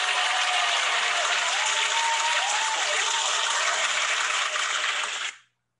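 Crowd applause with a few cheers or whoops mixed in, dense and steady, then cutting off shortly before the end.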